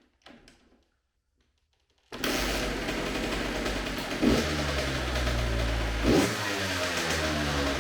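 Kawasaki KX85 two-stroke single-cylinder dirt bike engine firing up about two seconds in and running, blipped twice on the throttle. It starts now that it has been choked; the no-start was the unused choke.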